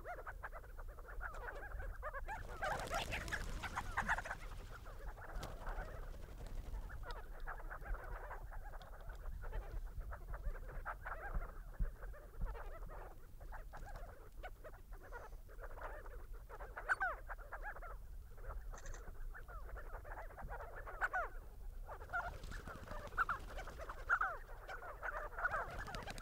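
A flock of crowned and spotted sandgrouse calling: a continuous chatter of short, quick calls from many birds, with a brief rushing noise about three seconds in.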